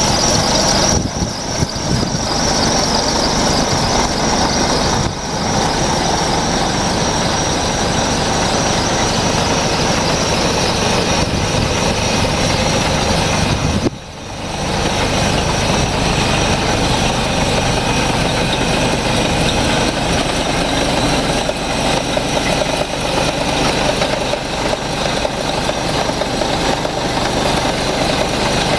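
Scania R470 truck's 12-litre straight-six diesel engine idling steadily, with a steady high whine over it.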